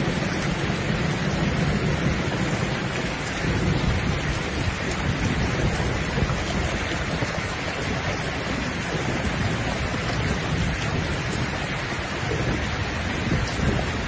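Steady heavy rain with a low rumble of thunder under it.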